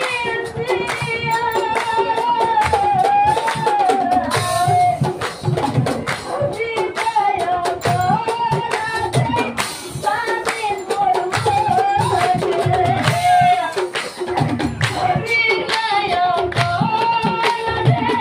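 A woman sings a nagara naam devotional song in a wavering, sustained melody. Nagara drums beat steadily beneath her voice, with rhythmic clapping or small jingles over the top.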